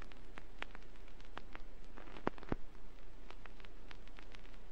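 Vinyl record surface noise from a turntable stylus running in the groove, with no music: steady hiss full of scattered crackles and clicks, and two louder pops about halfway through. A steady low hum sits underneath.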